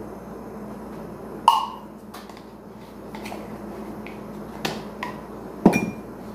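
A few separate sharp clicks and taps from a metal teaspoon and the baking powder tin and its lid. The first click, about a second and a half in, rings briefly, and the loudest comes near the end. A faint steady hum runs underneath.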